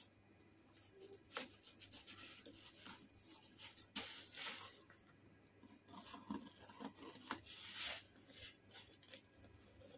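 Cardboard shipping box and its packing tape being torn open by hand, in irregular short rips and longer rustles.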